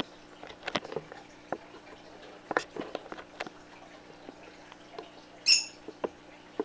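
Budgerigars chattering in short clicks and quick squeaks, with one loud, sharp call about five and a half seconds in.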